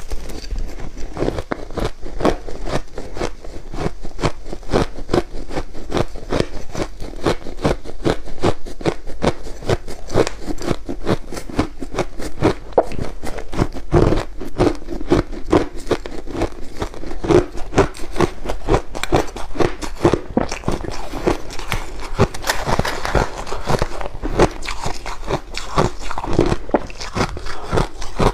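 Crushed ice being bitten and chewed in big mouthfuls: a rapid, unbroken run of crisp crunches, several a second.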